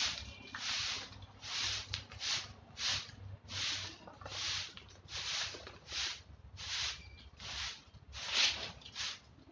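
A broom sweeping leaves and grit across a concrete floor in repeated swishing strokes, about one and a half strokes a second.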